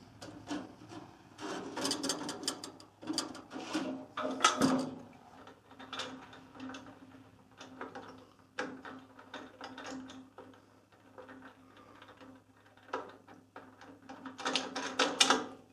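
Irregular metal clanks, scrapes and clicks as the bandsaw's table is handled and fitted back on, with the loudest knocks about two and four seconds in and again near the end.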